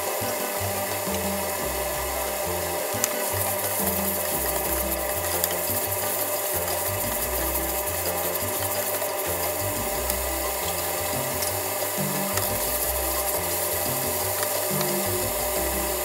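Diced chicken pan-frying in oil in a nonstick frying pan: a steady sizzle, with a few light clicks of a spatula as the pieces are stirred.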